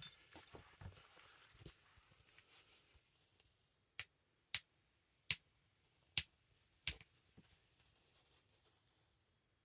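Faint handling of a package and hat: light rustling and taps, then five sharp, short clicks spaced about half a second to a second apart.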